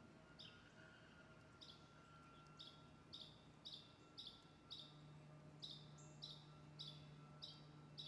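Juvenile downy woodpecker calling: short, high chirps repeated about twice a second, the chatter of a fledgling.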